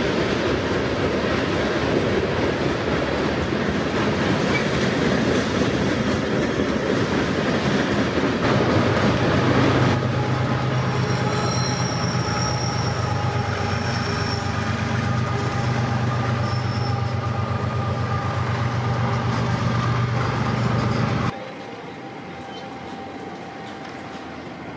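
Loaded BNSF coal train cars rolling and clattering across a railway overpass, with a steady low hum joining about a third of the way in and faint high wheel squeals in the middle. The sound cuts off abruptly near the end to a much quieter steady background.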